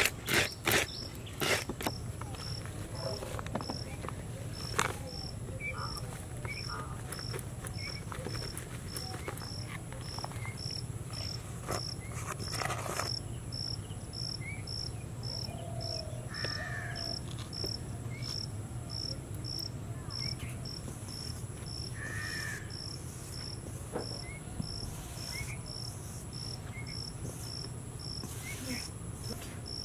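An insect chirping in short, evenly spaced high-pitched pulses, a little more than one a second, over a low steady hum.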